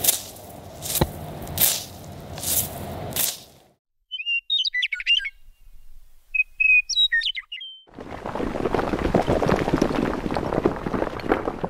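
A scythe swishing through dry grass stalks several times in a row, each stroke a short swish. About four seconds in, a bird chirps in two short bursts. From about eight seconds on comes a dense gritty crumbling noise, like stone breaking apart.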